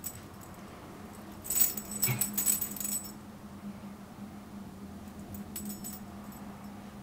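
Small metal tags on a dachshund's collar jingling as the dog moves, in a loud burst about a second and a half in and a fainter one around five seconds in. A low steady hum lies underneath.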